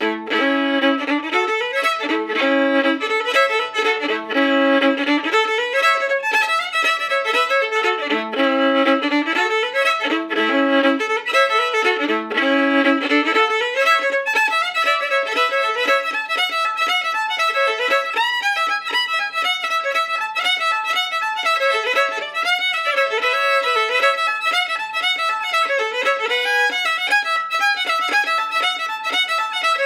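Fiddle music: a lively folk fiddle tune played over the footage, going into a different tune about fourteen seconds in.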